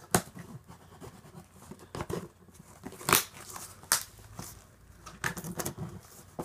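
Cardboard shipping box being pried and torn open by hand, with irregular sharp rips and rustling of the packing inside.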